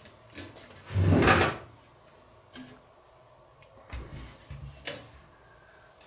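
Steel PC tower case (Fractal Design Define S2 Vision) being handled and turned on a wooden table: a loud clunk about a second in, then a low thud and two sharper knocks between four and five seconds in.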